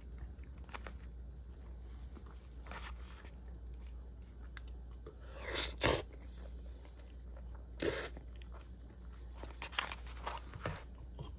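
Close-up eating sounds: chewing a mouthful of natto, raw bonito and rice, with scattered short clicks and knocks, the loudest a pair a little past halfway and another about two seconds later.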